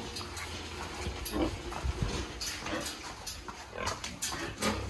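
Pigs grunting in short, scattered calls.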